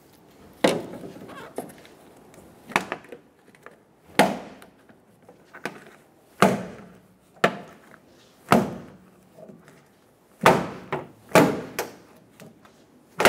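Plastic retaining clips of a Chevrolet Silverado tailgate molding snapping loose one after another as the molding is pried up with a trim tool. A series of about ten sharp snaps, roughly one every one to two seconds.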